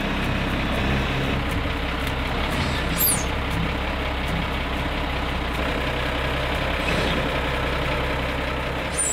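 The inline-six diesel of a 1987 Mercedes-Benz Unimog 1300L running at low revs as the truck creeps down off a trailer ramp. A short falling high squeak comes about three seconds in, and another sharp squeak near the end.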